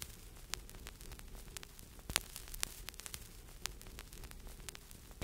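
Faint vinyl record surface noise: a steady hiss with irregular clicks and pops over a low hum.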